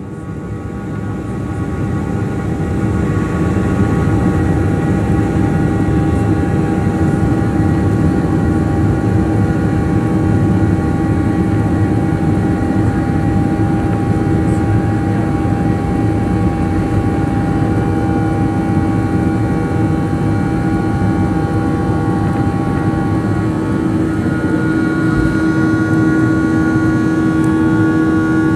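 Cabin sound of a Boeing 737-800's CFM56-7B turbofan engines at takeoff power during the takeoff roll: a loud, steady rumble with several whining fan tones, growing louder over the first few seconds. Near the end there is a single low thump, and a higher whine comes up.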